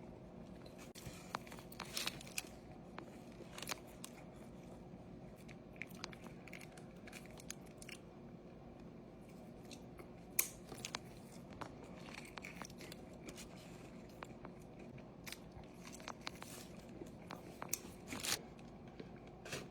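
Close-miked biting, crunching and chewing of a Taco Bell Crunchwrap Supreme, a run of irregular crisp crunches and mouth sounds over a steady low hum.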